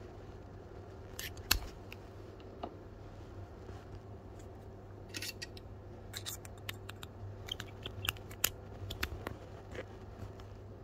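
Sharp metallic clicks and taps of a soldering iron and its tips being handled against metal iron holders: one loud click about a second and a half in, then a cluster of quicker clicks in the second half. A steady low hum runs underneath.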